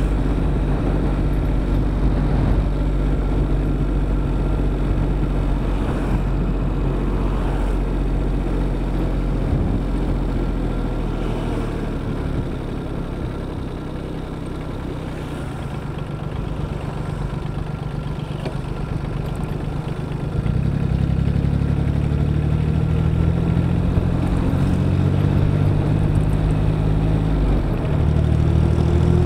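Diesel motorcycle engine running under way, heard from on board. It eases off for several seconds partway through, then picks up again about two-thirds of the way in and once more near the end as the bike accelerates.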